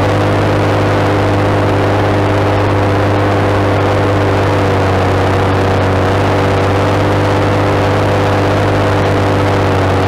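JCB Fastrac 7270's Cummins six-cylinder turbo diesel growling steadily under load, pulling a six-furrow plough.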